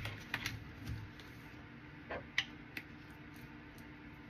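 Several light clicks and taps of small objects being handled and set down, a cluster of them in the first second and a few more about two to three seconds in.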